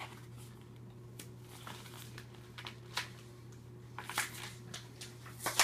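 Faint rustling and crinkling of a trading-card pack's packaging and cards being handled, with scattered light clicks and a short louder rustle about four seconds in, over a steady low hum.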